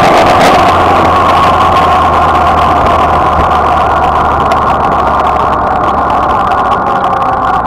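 Suzuki Bandit motorcycle's inline-four engine running at road speed, with wind rush over the microphone. The engine note and the overall level fall gradually as the bike slows.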